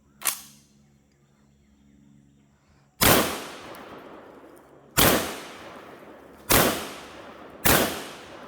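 Four loud gunshots about one and a half to two seconds apart, each trailing off in a long echo, after a smaller sharp crack just after the start.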